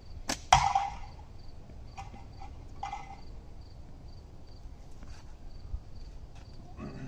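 Slingshot shot: a sharp snap of the latex bands on release, then about a quarter second later a steel ball strikes the tin can target with a loud metallic clang that rings briefly. Two fainter metallic knocks follow about two and three seconds in, over crickets chirping in steady pulses.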